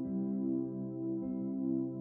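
Ambient new-age background music: held steady notes with slow, gentle swells.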